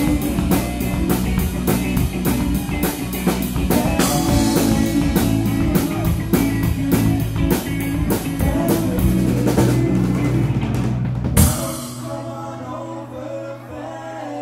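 Live rock-pop band with a drum kit, electric guitar and bass playing an upbeat song with a steady driving beat. About eleven seconds in the band ends on one loud hit with a ringing cymbal, and softer held chords follow.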